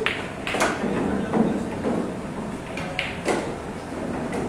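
Pool hall room noise with a few sharp clacks and faint background voices.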